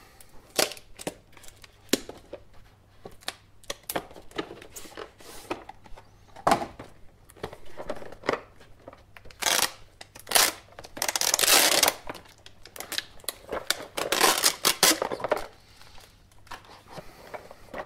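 Hard clear-plastic display case of a GoPro camera box being pried open and handled: a run of sharp plastic clicks and taps, with longer stretches of crinkling and scraping about ten and fourteen seconds in.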